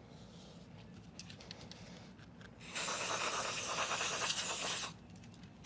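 Aerosol can of CRC throttle body cleaner spraying through its straw onto a carbon-fouled throttle body: a steady hiss about two seconds long, starting past halfway, after some faint handling clicks and rustles.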